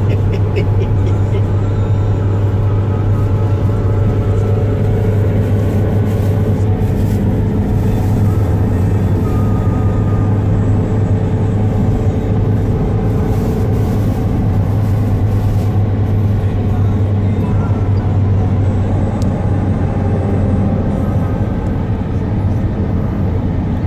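Car cabin road noise while driving at highway speed: the engine and tyres make a steady low drone heard from inside the car.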